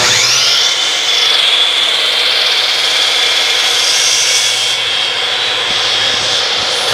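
Makita 12-inch sliding compound miter saw motor spinning up with a rising whine, then running at full speed with a steady high whine while the tilted blade is brought down through a clamped board for a 45-degree bevel cut.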